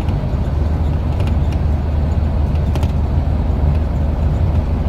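Steady low rumble of engine and road noise heard from inside a moving vehicle, with a few faint ticks.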